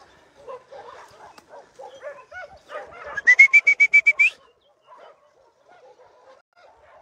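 Many dogs barking in the distance, scattered short calls throughout. A little past the middle comes a loud, rapid, high-pitched trill of about eight notes, lasting about a second.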